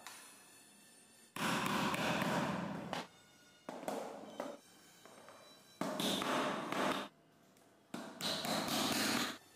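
Four bursts of scraping, rustling handling noise, each about one to one and a half seconds long, as plastic toy wheels are worked onto wooden axles.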